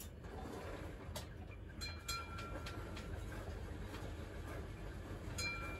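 Dishes or utensils clinking at a kitchen counter: a few light knocks, two of which ring on briefly with a clear tone, about two seconds in and again near the end. A steady low hum runs underneath.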